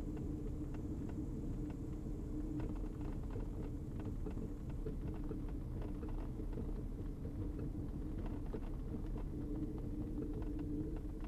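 Diamond DA42 twin's piston engines running at low power while taxiing, a steady low hum with faint scattered ticks.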